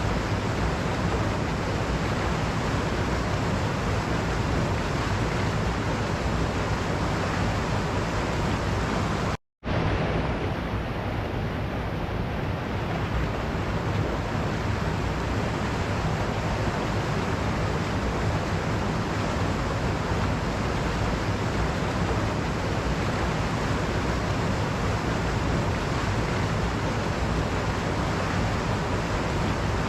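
Waterfall: water rushing and splashing in a steady, unbroken roar. It cuts out completely for a split second about a third of the way in, then resumes unchanged.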